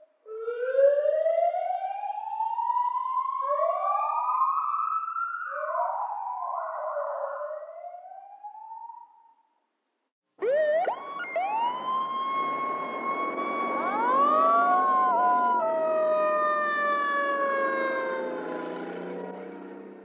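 Emergency vehicle sirens. First, several overlapping wails rise in pitch again and again. After a short break of about a second, a siren winds up to a steady high wail while another sweeps up through it, over a rumble of traffic. The sound is loudest in the middle, then slowly falls in pitch and fades.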